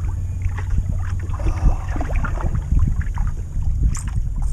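Wind buffeting the microphone in a steady low rumble, with water lapping against a boat's hull and scattered light knocks and ticks.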